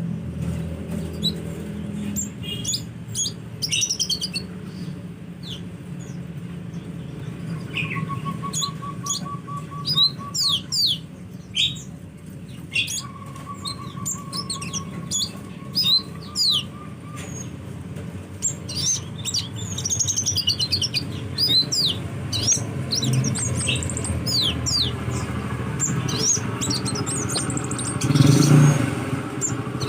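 Sunbird song: a busy run of quick, high, sharp chirps, many sweeping downward in pitch, with two short rapid trills of lower notes about eight and thirteen seconds in. A steady low hum lies underneath, and a brief louder rushing noise comes near the end.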